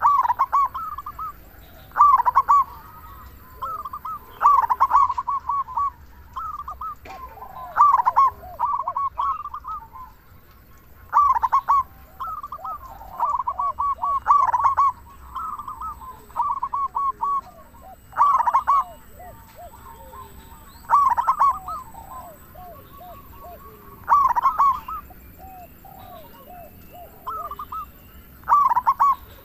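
Zebra dove (perkutut) cooing in short repeated phrases, a loud burst every two seconds or so, with softer coos between.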